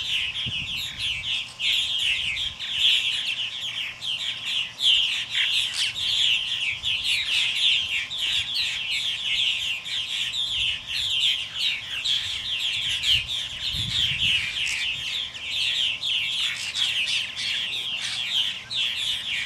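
A flock of purple martins calling together around their nesting houses: a dense, continuous chatter of many short, overlapping falling chirps.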